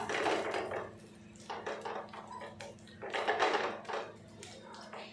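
A hand patting and spreading thick, coarse adai batter on an oiled cast iron tawa, wet patting and smearing in three bursts about a second apart, over a steady low hum.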